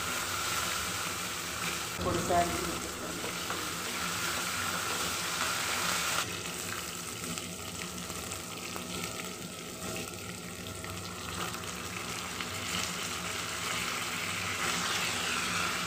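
Hot oil sizzling in a kadai as a tempering of chana dal, urad dal and green chilli fries, with chopped onion added and stirred in with a wooden spatula. A brief louder knock comes about two seconds in.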